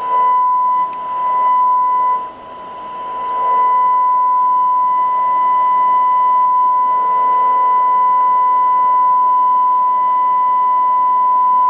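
Hallicrafters SX-71 shortwave receiver putting out a steady 1 kHz test tone from a signal generator tuned in at 24 MHz, over faint hiss. The tone drops out briefly about a second in and again about two seconds in as the band spread is tuned, then comes back up and holds steady.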